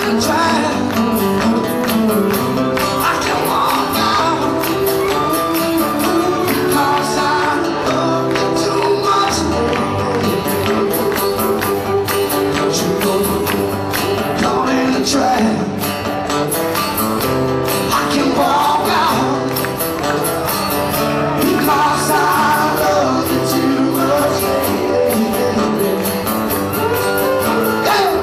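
Live acoustic country song: a male lead vocal over strummed acoustic guitars with a steady beat.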